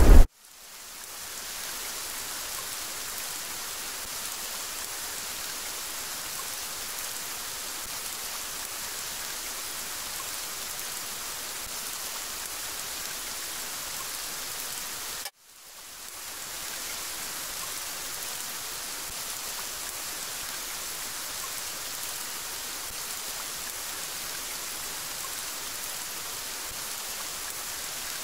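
Steady rainfall, an even hiss of rain. It fades in at the start, cuts out suddenly about halfway through, then fades back in and runs on evenly.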